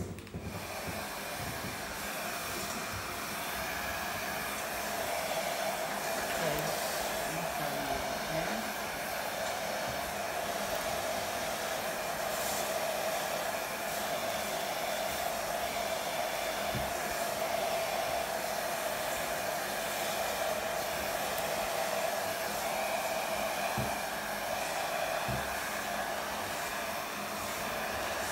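Handheld hair dryer running steadily while blow-drying a wig: a constant rush of air with a steady hum.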